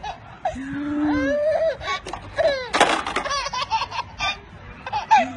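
Baby laughing in a run of short, high-pitched bursts, with one louder breathy burst of laughter about halfway through.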